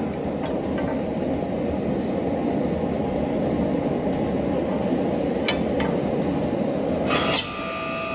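A steady rushing noise, broken about seven seconds in by a sharp metallic clank, after which the motor and hydraulic pump of a 5-ton log splitter converted into a forging press start with a steady whine.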